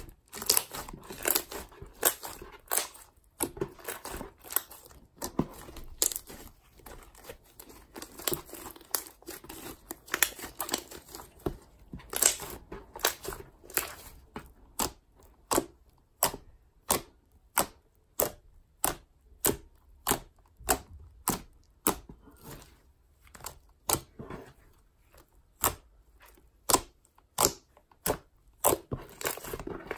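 Clay slime made from play dough (butter slime) being kneaded and poked by hand, giving a crisp crackling. The first half is dense, irregular crackling; from about halfway it turns to separate sharp pops, slightly more than one a second, as fingers press into it.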